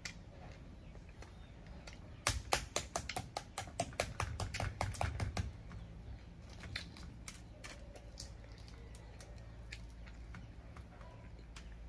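Metal spoon tapping the shell of a balut (fertilized duck egg) standing in a small holder, cracking the top open. A quick run of about six taps a second starts about two seconds in and lasts some three seconds, followed by scattered single taps on the broken shell.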